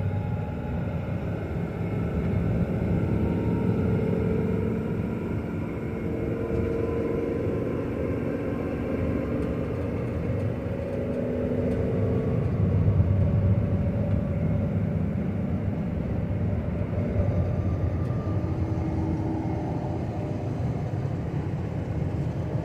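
Ford F450 truck engine and road noise heard inside the cab while driving, the engine pulling under load as revs climb with the truck accelerating; slightly louder about halfway through.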